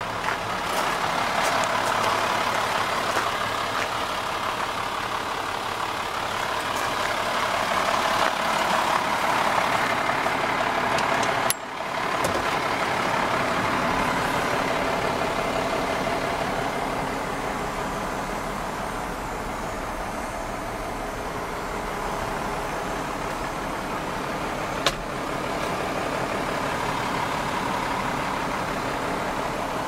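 Volvo BM L70 wheel loader's six-cylinder Cummins diesel engine idling steadily. A single sharp click cuts through it past the two-thirds mark.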